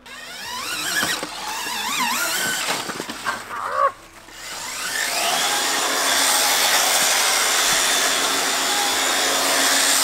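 Pocket bike's electric drive, a 60 V electric chainsaw motor, whining under throttle. The pitch wavers and dips over the first few seconds, then winds up in a rising whine about five seconds in and holds steady and high.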